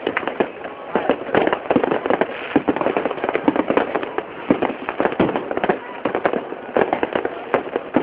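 A dense barrage of fireworks, with many overlapping bangs and crackles going off several times a second without a pause.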